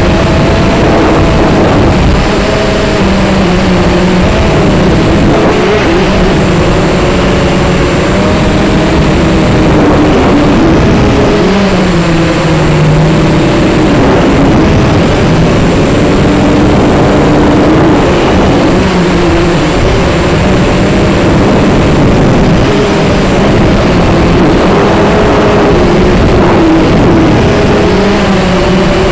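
Camera drone's motors and propellers whirring close to the microphone: a loud, steady hum whose pitch wavers up and down.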